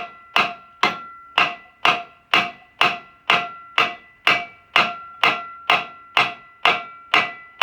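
Hammer striking steel in a steady rhythm, about two blows a second, each with a short metallic ring: knocking to shock loose a part held by a woodruff key on a shaft while a small puller is under tension.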